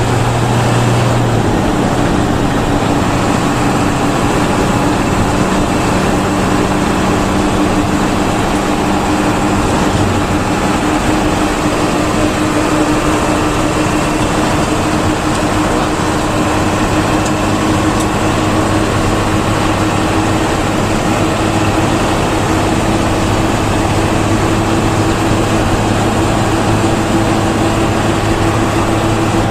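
Intercity bus running along the highway, with engine and road noise heard from inside the cabin. The engine note shifts down about a second and a half in, then holds steady.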